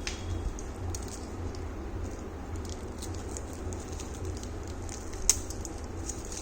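Hands handling packaging from a gift box: faint rustles and small taps, with one sharp click about five seconds in, over a steady low room hum.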